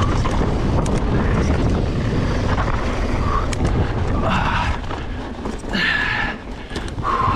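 Wind rushing over the microphone and the steady rumble and rattle of a mountain bike rolling fast over a dry dirt trail, with a few short higher buzzes near the middle and end.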